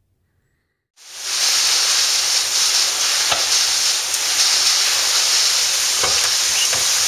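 Heavy storm of driving rain and wind, a loud steady hiss that starts suddenly about a second in, with a few faint knocks.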